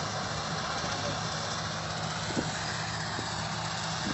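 Sant 5700 combine harvester running: a steady engine hum under a dense, even machinery hiss, with a couple of faint clicks about two and a half seconds in.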